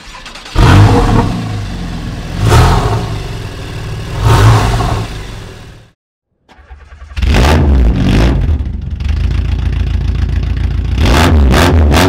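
A Porsche 911 Carrera 4S flat-six revved hard three times, about two seconds apart, then cut off abruptly. After half a second of silence a car engine comes in suddenly and runs loud, ending in quick blips about three a second.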